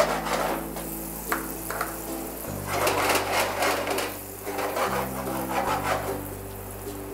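Melted margarine and sugar sizzling in a frying pan on a gas flame, the hiss swelling and easing, loudest around the middle. Background music with steady low notes plays underneath.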